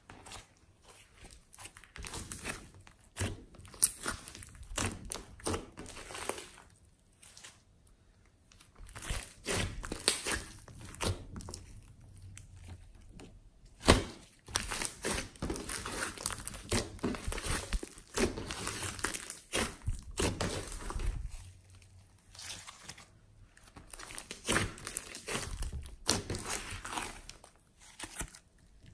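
Hands squeezing, stretching and poking glossy slime, making irregular sticky pops and clicks in uneven bursts with short pauses between.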